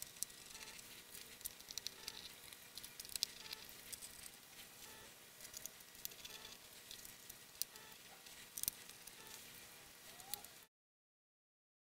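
Small #00 Phillips screwdriver driving the bottom-case screws back into a MacBook Pro: faint, irregular clicks and scrapes of the driver tip in the screw heads. The sound cuts out abruptly near the end.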